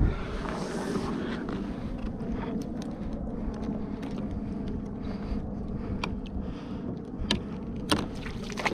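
Small waves lapping against a kayak hull, with wind on the microphone, and a few sharp clicks in the last two seconds.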